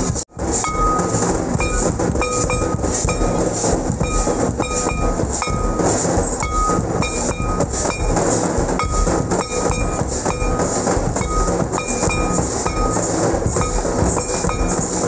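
Loud, distorted drumming for a Santali line dance: dense, rhythmic drum strokes, with short high tones repeating about once a second. The sound drops out briefly just after the start.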